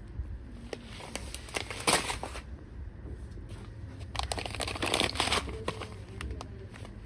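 Plastic or paper packaging crinkling and rustling as it is handled, with scattered light clicks and knocks; the loudest rustles come about two seconds in and again around the middle.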